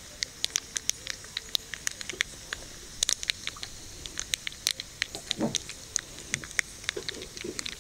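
Mustard seeds and urad dal spluttering in a spoonful of hot oil in a small tempering ladle: rapid, irregular sharp pops over a faint sizzle, the sign that the oil is hot enough and the tempering is ready to pour.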